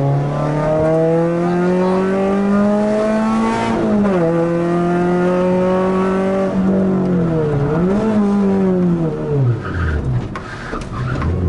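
Renault Clio Sport rally car's engine heard from inside the cabin, pulling hard with the revs climbing, then an upshift about 4 s in. The revs hold, then dip and rise around the eighth second as the driver lifts off and downshifts. Near the end the revs fall steeply as the car brakes, then pick up again.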